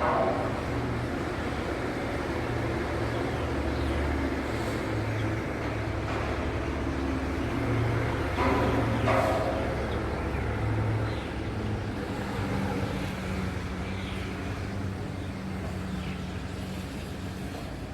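Low, steady rumble of motor traffic, swelling briefly about halfway through.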